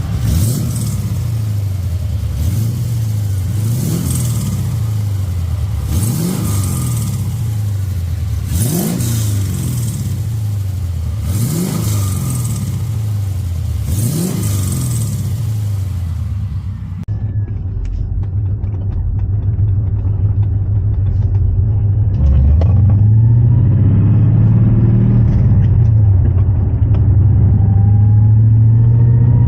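A 5.7 L LS1 V8 swapped into a BMW E36 idles with a sharp throttle blip about every two and a half seconds while an exhaust leak is being hunted for. About halfway through, the sound changes abruptly to a duller, steadier engine note that slowly rises in pitch and gets louder.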